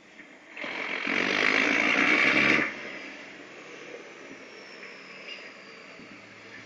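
Peterbilt 379 semi truck with a Caterpillar 3406 diesel driving off across the lot, heard at a distance. A loud rushing hiss starts about half a second in and cuts off sharply about two seconds later. The engine then runs on more faintly, with a faint falling whine.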